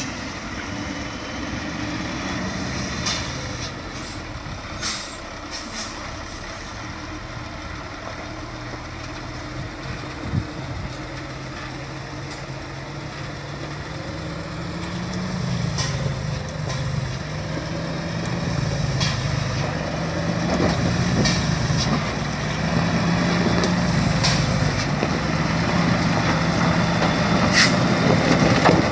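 Heavy diesel logging truck engine running, growing louder and working harder from about halfway through, with a few short sharp hisses.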